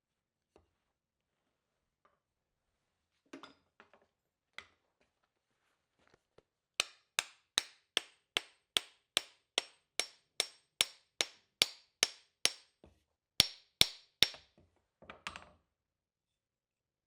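Blacksmith's hand hammer striking steel on an anvil while forging a tomahawk head: a few scattered knocks, then a steady run of about fifteen ringing blows at roughly two and a half a second. Three harder blows follow, then a brief clatter.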